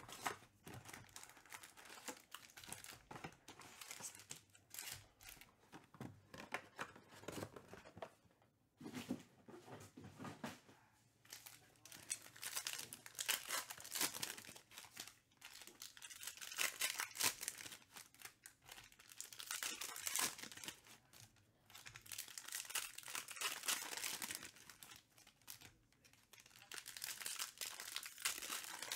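Trading-card pack wrappers being torn open and crinkled by hand, in bouts of crackling and rustling a few seconds long with short pauses between.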